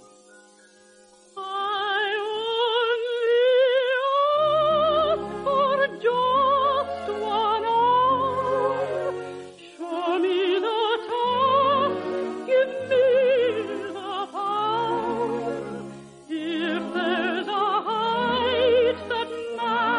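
A soprano sings a waltz song in operetta style with a wide vibrato, over an orchestra; the voice enters about a second and a half in.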